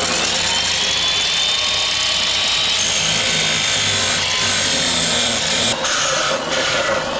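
Abrasive cut-off (chop) saw running and grinding through a metal exhaust pipe, a steady loud grinding with a high whine. The sound gets rougher and brighter about six seconds in.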